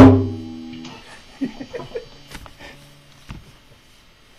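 Cigar box guitar and log drum end together on one final loud hit. The guitar's chord and the drum's low boom ring out and fade over about a second. After that come a few faint voice sounds and a single light knock.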